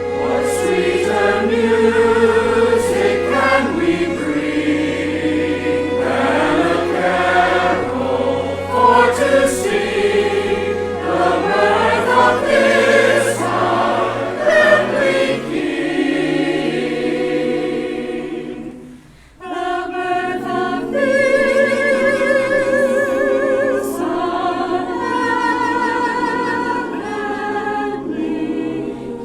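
Church choir singing with orchestral accompaniment. The music drops away briefly about two-thirds through, then the choir comes back in on a new phrase.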